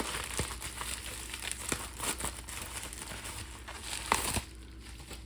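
Crinkling and rustling of packaging being unwrapped by hand from around trading cards sent in a mailing envelope, with scattered small crackles and clicks; it mostly dies down about four and a half seconds in.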